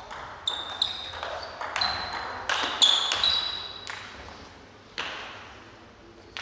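A table tennis ball in a fast rally: quick sharp pings of the ball off the bats and the table, several a second, for about four seconds. After that, two single knocks further apart near the end.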